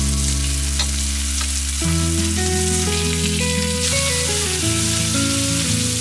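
Cajun-seasoned salmon fillets sizzling steadily in hot oil in a stainless steel skillet, with tongs moving them in the pan. Background music plays underneath.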